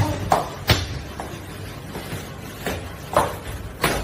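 Sharp slaps and thuds of a person being hit and shoved, about six blows at irregular intervals.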